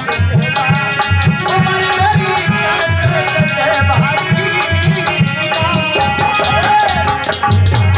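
Instrumental passage of a Hindi folk song: a steady drum beat of about three strokes a second under a wavering melodic lead line, the drumming getting busier near the end.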